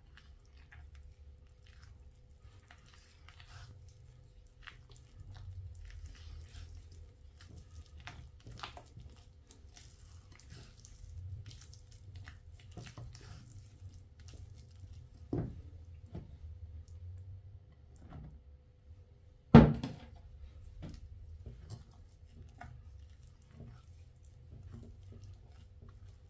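Silicone spatula stirring thick batter in a bowl: soft scraping and wet squelching with small clicks, a knock about fifteen seconds in and a much louder sharp knock about twenty seconds in.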